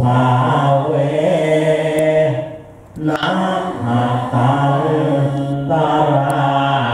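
A group of Thai lay Buddhist devotees chanting Pali verses in unison on a near-monotone, with a short pause for breath about two and a half seconds in.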